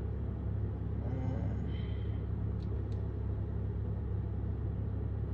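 Steady low rumble of a stationary car, heard from inside the cabin, with two faint clicks about two and a half and three seconds in.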